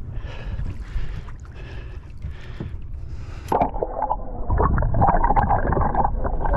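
Boat on open water: water gurgling and sloshing against the hull over a low rumble, louder from about three and a half seconds in.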